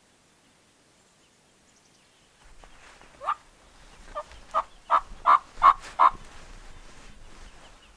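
A series of about seven turkey yelps, evenly spaced and growing louder, with a low rumble underneath.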